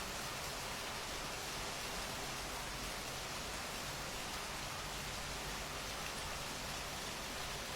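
Steady rainfall, an even hiss of drops on surfaces with no letup.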